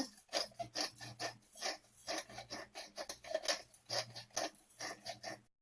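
Pepper being dispensed over raw chicken breasts from its container: a quick, uneven run of small rattling clicks, about four or five a second, stopping just before the end.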